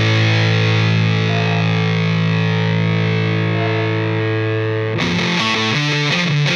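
Rock music with distorted electric guitar: a long chord rings out, and about five seconds in a fast riff of quick-changing notes starts.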